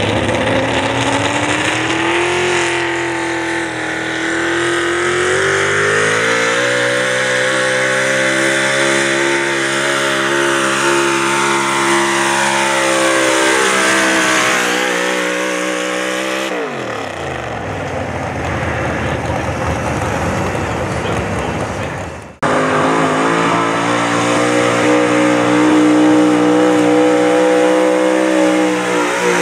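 Big-block V8 engine of a 4x4 pulling truck running hard under load, its pitch climbing over the first several seconds and then holding high. About fifteen seconds in the revs fall away steeply. The sound cuts off abruptly about 22 seconds in, then a big-block engine is heard again at high, steady revs.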